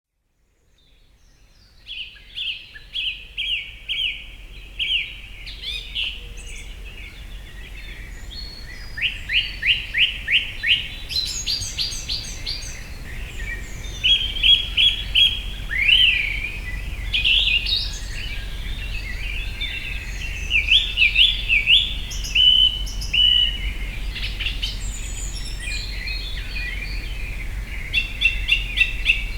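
Songbirds singing, with several overlapping songs of quick repeated chirps and trills, fading in from silence in the first two seconds. A steady low rumble runs underneath.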